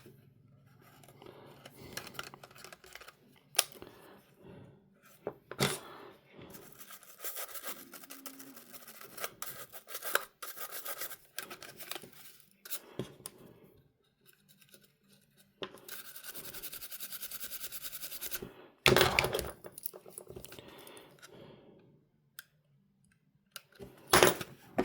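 Close-up handling of a small portable minidisc player during cleanup: scattered scratching, rubbing and small clicks, with a steady rubbing stretch of about three seconds past the middle and a couple of louder knocks near the end.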